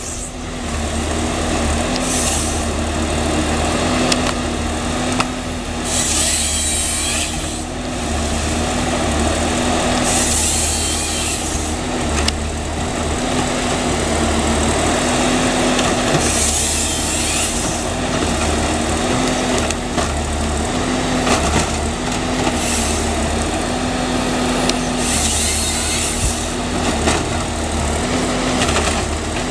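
Valmet 941.1 harvester's diesel engine running steadily under hydraulic load while the harvester head feeds and bucks a maritime pine stem. Short bursts of high-pitched noise come every few seconds as the head's chain saw cuts through the wood.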